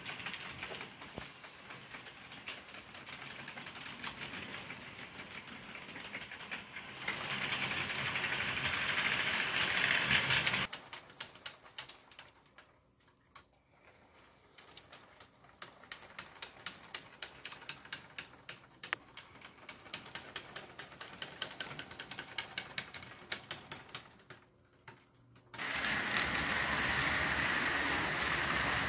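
HO-scale model freight cars rolling along sectional track, their metal wheels clicking over the rail joints in a steady run of clicks. Near the end the sound jumps suddenly to a louder steady whirring as the model diesel locomotives pass close.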